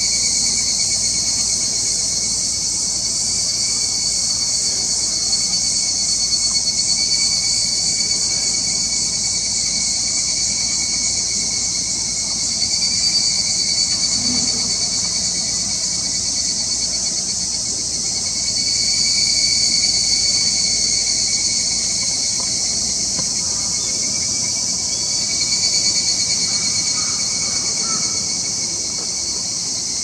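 A steady, high-pitched insect chorus, a dense shrill buzz that swells and fades about every six seconds.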